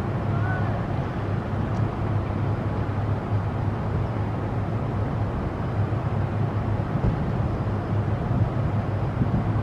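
Steady rumble of heavy road traffic going past, with a faint short chirp about half a second in.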